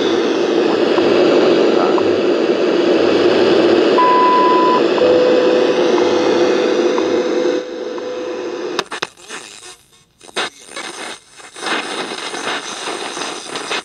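Sanyo Campanetta shortwave radio receiving the WWV time-signal station through static: a faint tick every second, a high beep lasting under a second about four seconds in, then a lower steady tone for a few seconds. Around eight seconds in the signal breaks up into choppy, stop-start static as the radio is retuned.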